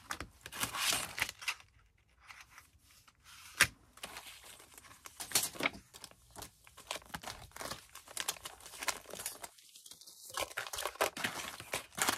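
Thin metal cutting dies and their packaging being sorted by hand: irregular crinkling and rustling with light clicks, and one sharper click about three and a half seconds in.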